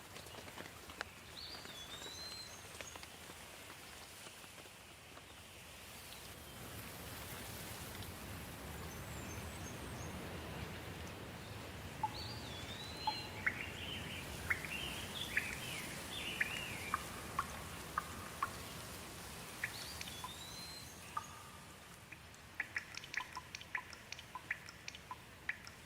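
Steady rain falling, growing a little louder through the middle, with songbirds calling over it. There is a repeated swooping whistle every several seconds, a burst of varied chirps in the middle, and a quick run of sharp chips near the end.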